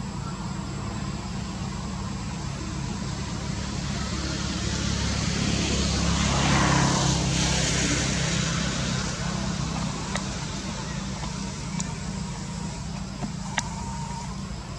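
Steady low rumble of road traffic, with a vehicle passing that swells up and fades away around the middle. A sharp click comes near the end.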